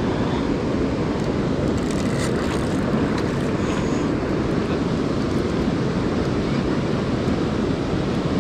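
Steady rushing of river water below a dam spillway, mixed with low rumbling wind on the microphone.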